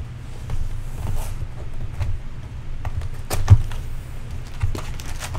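Hands opening and handling a cardboard box of Bowman baseball card packs: scattered knocks, taps and rustles, with one louder thump about three and a half seconds in, over a low steady hum.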